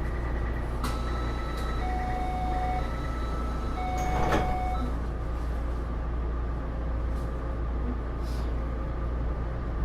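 Interior sound of a Taipei Metro Series C301 train car: a steady low rumble, with a few short electronic beep tones between about one and five seconds in and a single knock about four seconds in.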